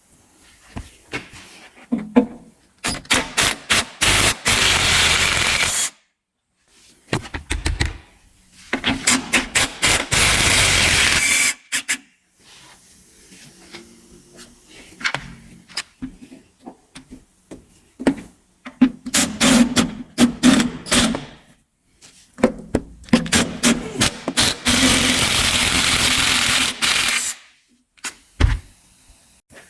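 A hand-held power tool, such as an air ratchet, impact driver or drill, run in repeated bursts of a few seconds each, with short clattering strokes between them, while the bolts of a truck's heat shield are undone.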